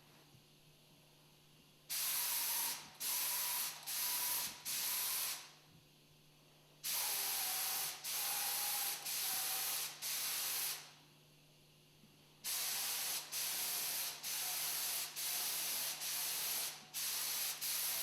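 Spray gun spraying clear lacquer sealer in trigger-pulled bursts of hiss. There is a group of four starting about two seconds in, three more after a pause, then a quicker run of shorter bursts near the end.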